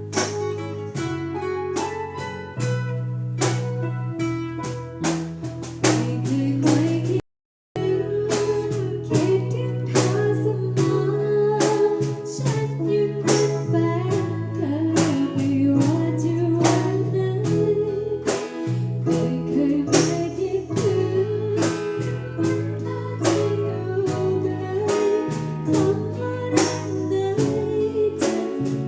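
A woman singing a Thai luk thung song over a backing track of plucked guitar and a steady beat. The sound cuts out completely for about half a second some seven seconds in.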